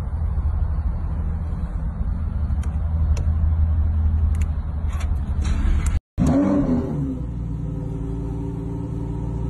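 Lamborghini Huracán EVO's V10 engine running with a steady low rumble and a few sharp clicks. After a brief dropout about six seconds in, it gives a short rev blip and settles back to a steady idle.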